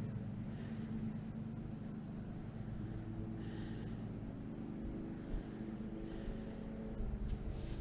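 Steady low drone of a distant engine, with faint high chirps and a rapid high trill coming and going over it.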